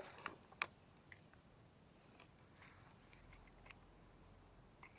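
Near silence with a few faint clicks in the first second, from hands handling a spinning fishing reel.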